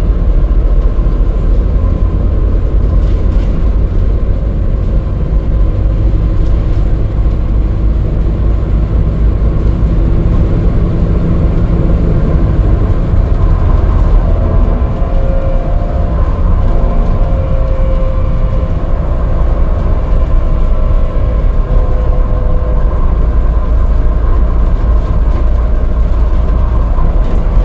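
Alexander Dennis Enviro400 MMC diesel-hybrid double-decker bus heard from inside the lower deck while driving: a steady low rumble of road and drivetrain noise. About halfway through, a faint wavering whine comes in and fades again, the axles becoming slightly audible at the faster speed.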